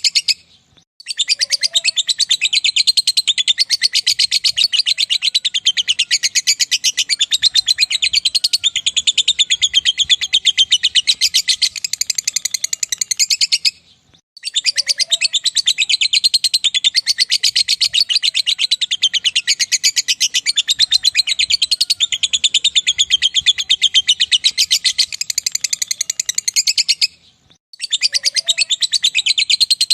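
Lovebird 'ngekek' call: a long, fast, high-pitched rattling chatter lasting about twelve seconds at a stretch. It breaks off briefly about a second in, around halfway and near the end, and then starts again.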